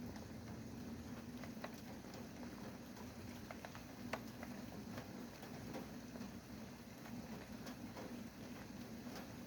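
Rain falling as a steady low hiss, with single drops tapping at irregular moments; one tap about four seconds in is sharper than the rest.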